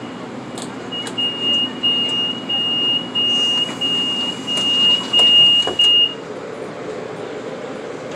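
A high, steady electronic beep held for about five seconds, starting about a second in, over a steady low hum, with a few sharp clicks.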